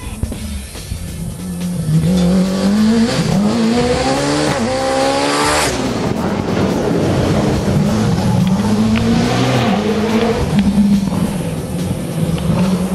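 Hillclimb competition car's engine accelerating hard. The revs climb steeply from about two seconds in, drop sharply at a gear change near six seconds, then stay high and wavering.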